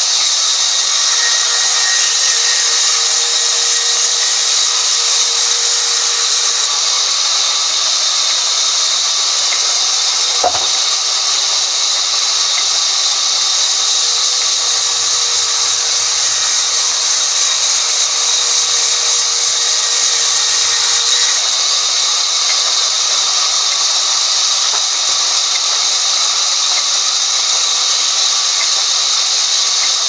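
Sawmill band saw running steadily as a log is fed through the blade and a slab is sawn off, with a loud, even high hiss. A single sharp knock comes about ten seconds in.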